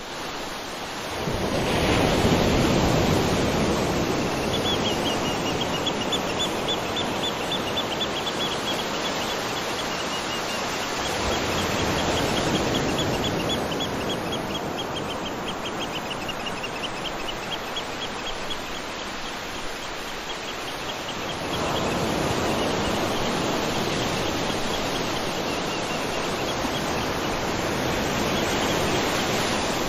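Nature ambience: a steady rushing noise that swells up three times, with a high, fast chirping trill running through most of it.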